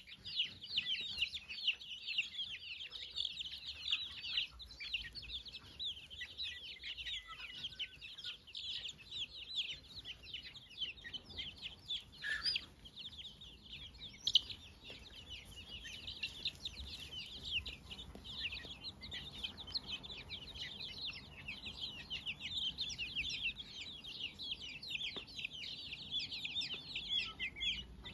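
A flock of young chicks peeping steadily: many short, high peeps overlapping in a continuous chorus.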